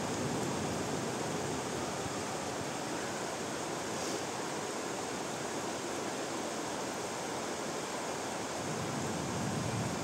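Steady rainfall, an even hiss, over a city of trees and rooftops. A low rumble of thunder swells near the end.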